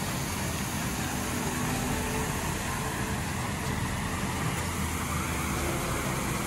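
Steady low rumble of outdoor background noise, with no distinct impacts standing out.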